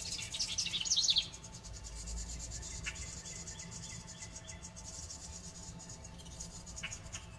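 House wren nestlings begging from inside a nest box: a rapid high chatter that is the loudest sound, lasting about a second before it stops. It is set over a steady high pulsing insect trill, with a faint single chirp twice later on.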